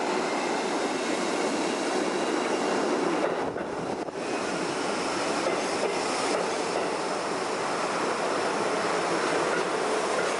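New York City subway train running on the track: a steady loud noise of the moving cars and wheels, with a faint high squeal and a brief dip about three to four seconds in.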